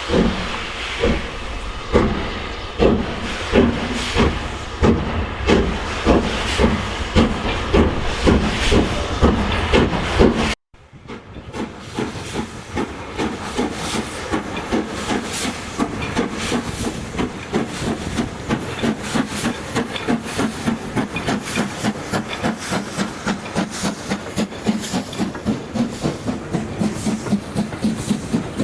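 Steam locomotive working a train: loud exhaust beats about one a second that gradually quicken, with steam hiss. After a sudden cut about ten seconds in, a faster, steadier run of beats, about three a second.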